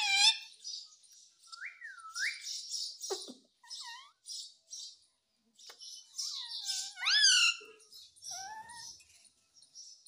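Indian ringneck parakeet chattering with short whistled notes, and two loud rising screeches, one at the very start and one about seven seconds in.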